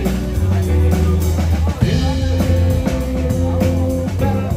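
Live rock band playing: electric guitar, bass guitar and drum kit, with a strong bass line under regular drum hits. One note is held for about two seconds midway.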